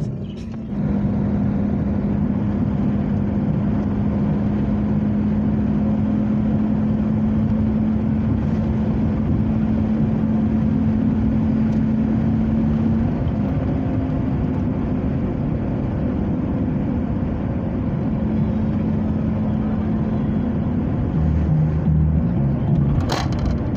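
A car driving on a paved highway, heard from inside the cabin: steady engine hum and tyre noise, the engine note shifting slightly about halfway through.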